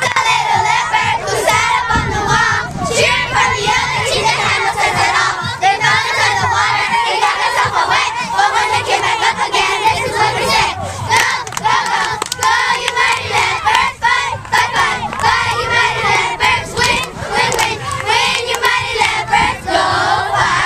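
A group of young girls shouting and cheering together, many voices overlapping.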